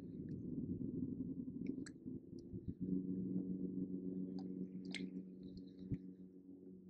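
Spinning reel being cranked to retrieve a lure: a steady gear whir that is broken off at first and picks up again about three seconds in, with scattered light clicks.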